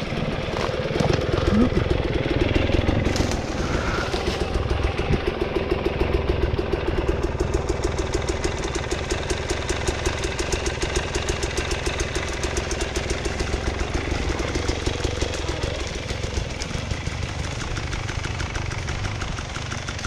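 Two-stroke dirt bike engine running at steady low revs with an even, rapid pulse.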